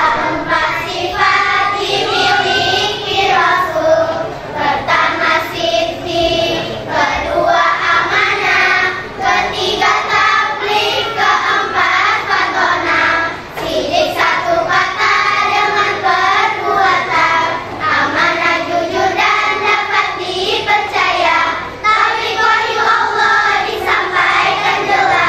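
A group of young girls singing a song together in unison, like a children's choir, with short pauses between phrases.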